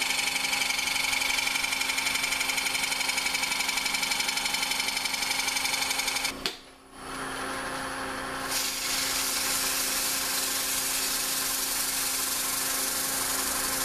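Powermatic 3520 wood lathe running steadily while a round-nose scraper cuts the foot of a spinning walnut bowl. The sound drops out briefly about halfway, then a steadier hiss follows as sandpaper is held against the turning wood.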